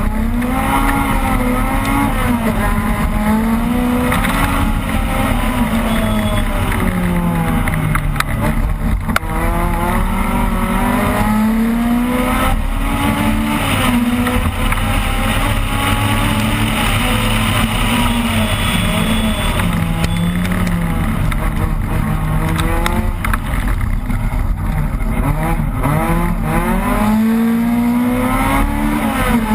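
Opel Kadett rally car's engine heard from inside the car, revving hard and climbing in pitch, then dropping back at each gear change or lift, over and over.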